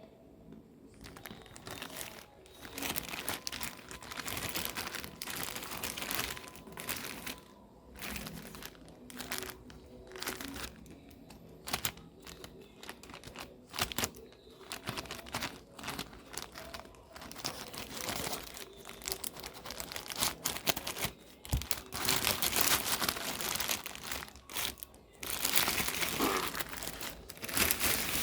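Plastic packaging crinkling and rustling as it is handled and unwrapped, with irregular crackles and snaps. The loudest handling comes near the end.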